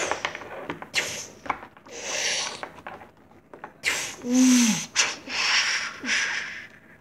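Two plastic action figures mashed and scuffed together in a play fight: rough scuffing bursts and a few sharp clicks, with a short falling grunt from a voice about four seconds in.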